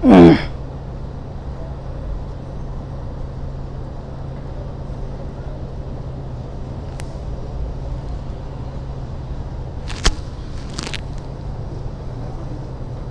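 Kawasaki ZX-10R's stock inline-four engine running steadily. There is a loud, brief falling sound at the very start and a sharp click about ten seconds in.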